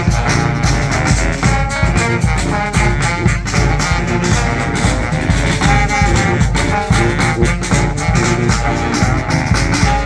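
Live street band playing upbeat brass-and-drums music, with a steady drum beat under the horns.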